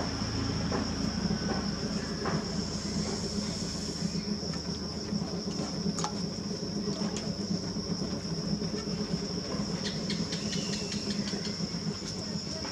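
Steady rumble of a turning potter's wheel under a continuous high-pitched drone of crickets, with a few faint ticks here and there.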